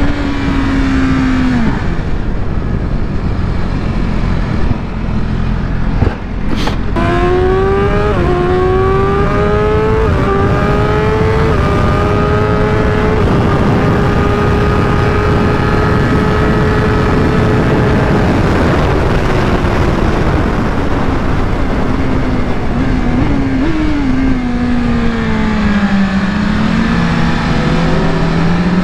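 BMW M 1000 RR's inline-four engine on track, over heavy wind rush. It winds down early on, then pulls hard through the gears with quick upshifts and holds at high speed. Then it drops away under braking, with short throttle-blip downshifts, and picks up again near the end; there is a single sharp click about six seconds in.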